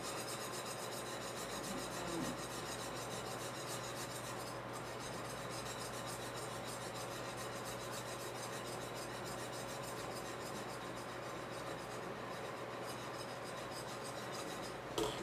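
Steady rasping and rubbing of a metal spoon working gelatin out of a glass bowl over a steel pot, with a low steady hum underneath and a short louder sound near the end.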